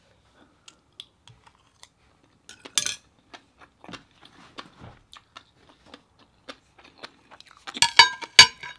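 Close-up eating sounds: soft chewing and mouth clicks from a mouthful of rice with fish roe, with a brief clatter about three seconds in. Near the end, kitchen scissors snip through cooked cuttlefish on a plate, giving several sharp metallic clicks and clinks.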